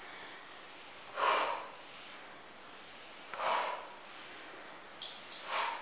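A woman's forceful exhalations, three short puffs about two seconds apart, in time with the repetitions of a seated weighted twist. About five seconds in, a steady high electronic beep from an interval timer starts, marking the end of the work interval.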